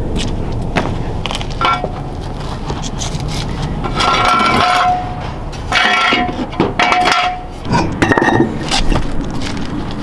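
Metal hand tools and parts clinking and knocking while a car's wheel is worked off its hub. A few short pitched bursts of about half a second each break in between the clinks.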